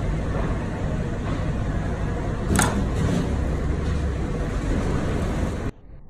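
Steady, loud background rumble and noise, with one sharp click about two and a half seconds in. It cuts off abruptly near the end, leaving a quieter, thinner sound.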